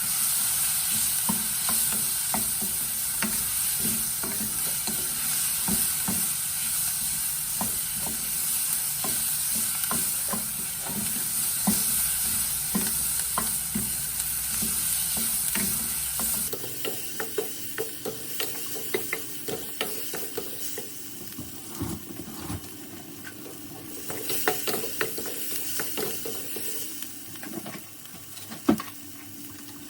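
Corn risotto sizzling in a pan while a spoon or spatula stirs it, with many small scrapes against the pan. About halfway through the sizzle cuts out abruptly, and quieter stirring and scraping go on.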